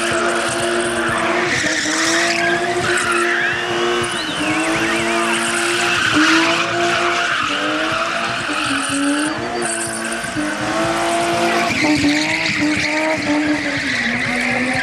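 BMW E30 3 Series engine held at high revs while the car spins donuts, its pitch wavering a little as the throttle is worked, over the steady hiss and squeal of the spinning rear tyres.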